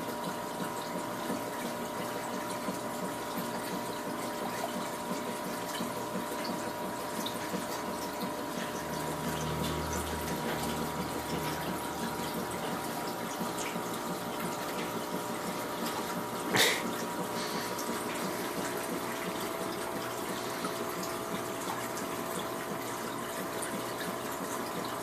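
Aquarium filter running: a steady trickle and splash of water with a steady motor hum. A single sharp click comes about two-thirds of the way through.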